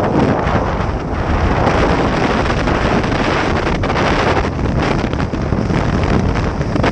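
Loud wind noise on the microphone of a jet ski under way, mixed with the hull and engine noise of the moving watercraft.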